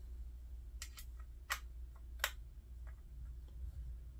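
Several sharp, light metallic clicks and taps, spaced out over about two seconds: small parts handled as the trigger plate pins of a Remington 1100 shotgun are picked up and set into the receiver. A low steady hum lies underneath.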